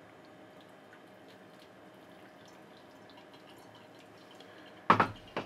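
Hot water dripping faintly through a stainless Vietnamese phin coffee filter into the cup, as small scattered ticks. Near the end come two loud sharp knocks about half a second apart.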